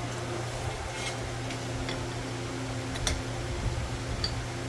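Steady low hum with a few light, scattered clicks and taps, the sound of metal parts being handled while a cut frame piece is tried for fit.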